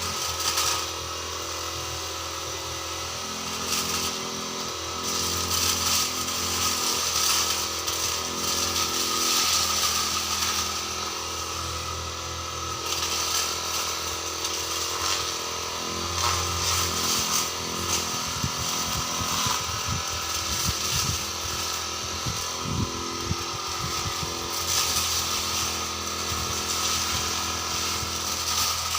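Petrol brush cutter (grass-cutting machine) running, its engine note rising and falling several times as the throttle is worked while cutting grass.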